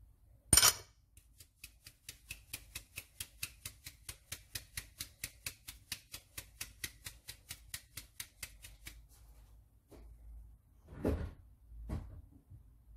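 Metal drum sieve being tapped and shaken to sift cocoa powder and flour: a sharp click, then a long run of quick, even ticks, about four or five a second, and two duller knocks near the end.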